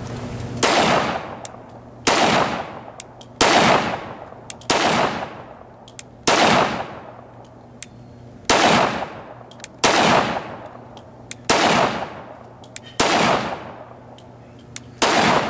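FN Five-seveN pistol firing 5.7×28mm rounds: ten single shots at a slow, even pace about one and a half seconds apart. Each is a sharp crack with an echoing tail.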